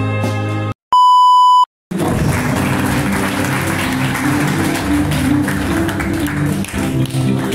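Background music cuts out and a single loud, steady electronic beep sounds for just under a second in the silence, about a second in. The music then comes back with a noisy hiss beneath it.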